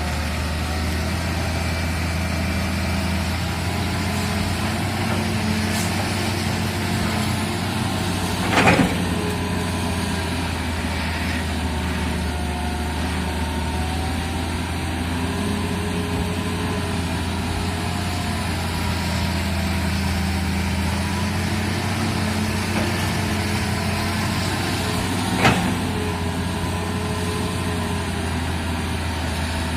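Excavator's diesel engine running steadily at a low drone, with two sharp knocks, one about nine seconds in and one near the end.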